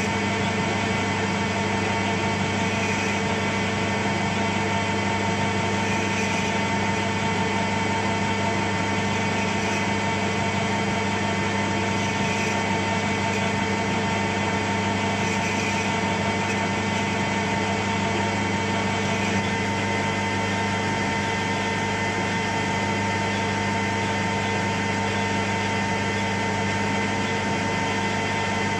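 Metal lathe running steadily, its motor and drive giving a constant hum with a faint whine, as the tool turns a chamfer on a small brass workpiece.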